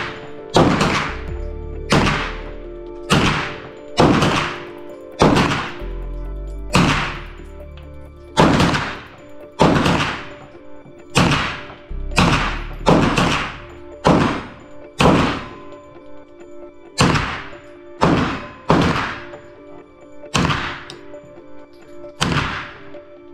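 Semi-automatic 9x19 pistol-calibre carbine (Diamondback DB9 AR9 with a 14-inch barrel and muzzle brake) firing a long string of single shots, roughly one a second, around two dozen in all, with a short pause about two-thirds of the way through. Background music plays underneath.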